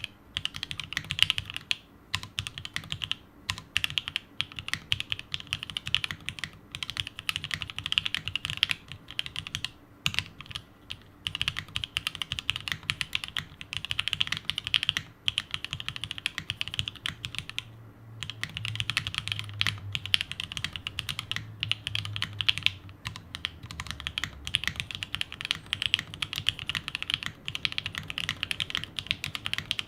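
Continuous fast typing on a plateless 7V by gok custom mechanical keyboard with lubed and filmed H1 switches, lubed Staebies stabilizers and CRP R4 keycaps: a dense stream of keystroke clacks with a few brief pauses.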